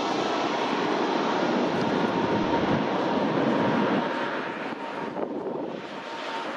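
Jet noise from an Airbus A320-214 on landing approach, its two CFM56-5B turbofans passing low overhead: a steady rushing sound with a faint steady whine in it. It drops away after about four seconds as the aircraft moves off.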